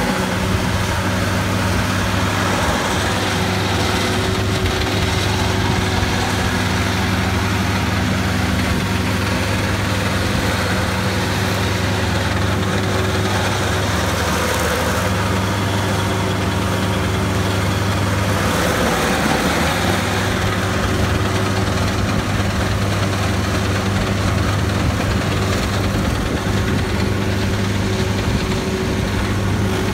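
Vermeer SC602 stump grinder's engine running steadily and loudly, a continuous even drone.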